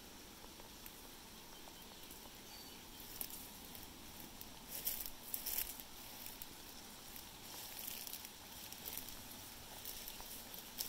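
Grass and brush rustling and crackling in short irregular bursts over a faint steady hiss, loudest around the middle and again near the end.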